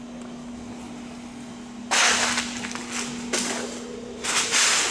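Two loud bursts of compressed-air hiss, each about half a second, one about two seconds in and one near the end. Under them runs a steady low hum that stops a little past halfway.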